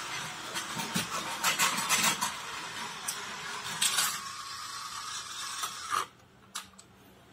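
Battery-powered toy model of an Osaka Metro 400 series train running on plastic track: the small motor whirs and the wheels clatter and click over the track. About four seconds in it settles to a steadier, quieter whir, then cuts off suddenly about six seconds in as a hand takes hold of the train.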